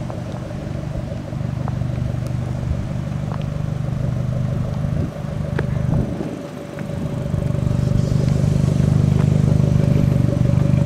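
Fiat 500 Abarth's turbocharged 1.4-litre four-cylinder running at low revs through a tuned exhaust as the car rolls slowly. About six seconds in the note dips and swings in pitch, then it grows louder and steadier as the car comes close.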